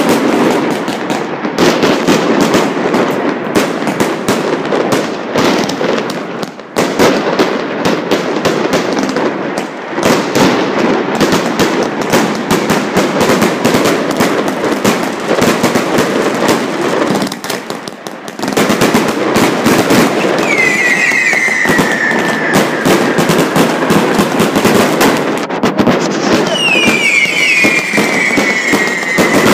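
Fireworks and strings of firecrackers going off in a dense, continuous crackle, with brief lulls about 7, 10 and 18 seconds in. About 20 seconds in and again near the end, a falling whistle sounds for a few seconds over the crackle.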